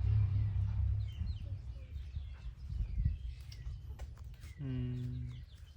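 Small birds chirping in short, scattered calls, over a low rumble that fades in the first second. A short, low, steady hum comes near the end.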